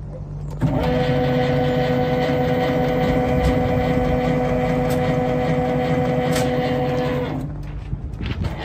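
Electric motor of an on-load tap changer's motor drive unit (HM SHM-D) running through one tap change. It starts abruptly about half a second in, runs with a steady hum for nearly seven seconds, and stops about a second before the end.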